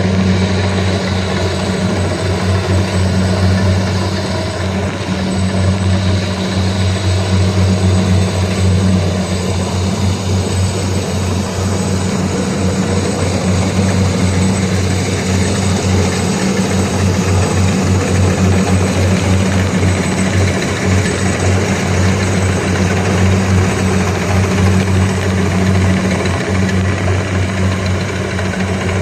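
Kubota DC120X combine harvester running steadily, a constant low engine drone under an even mechanical noise.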